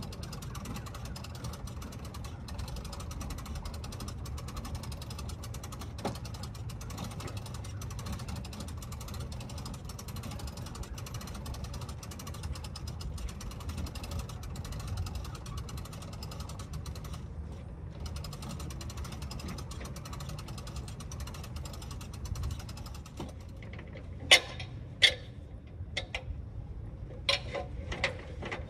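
Equipment lift's winch ratcheting with rapid, steady clicking over a low hum as HVAC equipment is raised. Near the end the clicking stops and a few sharp knocks follow.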